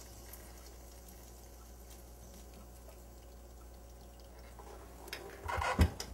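Faint trickling of rendered duck fat being poured out of an electric fry pan, with a few knocks and clatters of the pan near the end.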